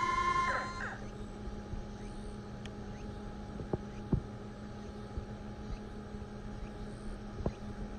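Electric retractable landing gear on a foam RC F/A-18 jet: the gear motors' whine drops in pitch and stops within the first second. A low steady hum with a few faint clicks remains.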